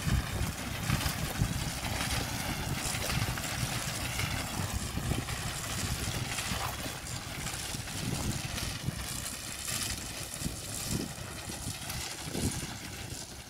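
Wind buffeting the microphone in uneven gusts, over the faint, distant running of a Fordson Dexter tractor pulling a reaper and binder.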